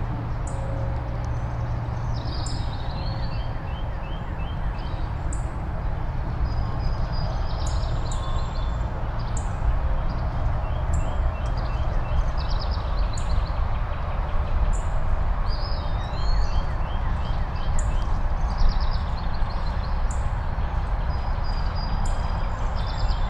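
Steady low rumble of distant highway traffic, with several birds singing and calling over it: repeated high chirps and short series of quick notes.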